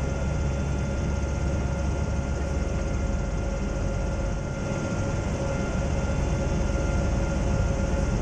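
Steady drone of a Zeppelin NT airship's engines and propellers in flight: a continuous low rumble with two steady held tones and a rushing hiss.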